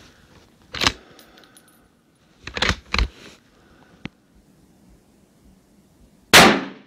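Bolt-action rifle being handled at the bench: the bolt is worked and a spent brass case clinks, as a few separate sharp metallic clicks and clacks, then a louder sharp clack near the end.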